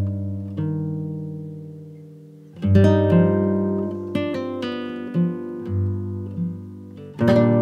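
Background music of acoustic guitar: plucked chords left to ring and fade, with strong strums at the start, a few seconds in, and near the end, and single notes between.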